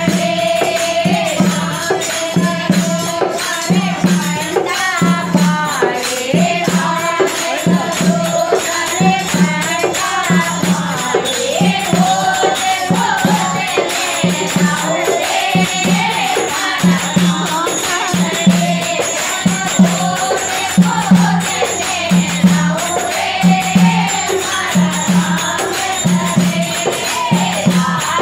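Women singing a Rajasthani devotional bhajan to Ramdevji together, over a dholak beating a steady deep stroke about once a second, with hand-clapping and a shaken cluster of small bells jingling in time.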